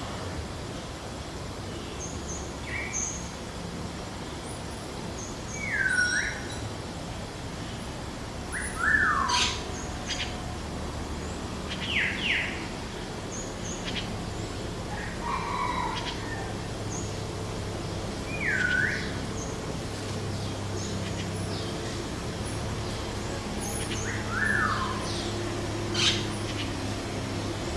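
Birds calling at dawn: short slurred whistles, several dipping down and back up, repeated every few seconds, with a few quicker chirps between them. A steady low hum runs underneath.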